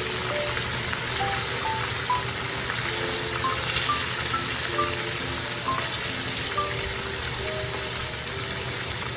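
Chicken frying in hot oil, a steady dense sizzle, under light background music of short melody notes.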